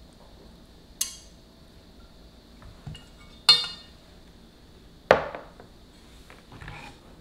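Kitchenware clinking and knocking as a side dish is served: wooden chopsticks and a white pot tapping against a glass bowl in sharp, ringing clinks, then a fuller knock about five seconds in as the pot is set down, with a few lighter taps.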